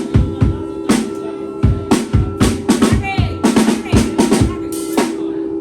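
Live drum kit played over a backing track: kick, snare and rimshot hits keep a steady groove over a held bass note, with a quick run of hits about two-thirds through.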